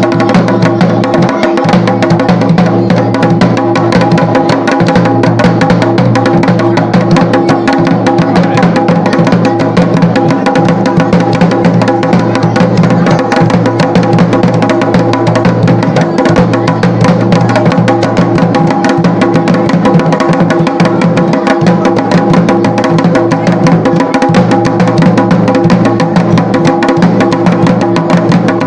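Garhwali dhol beaten in a fast, dense, continuous rhythm, with steady held tones sounding underneath.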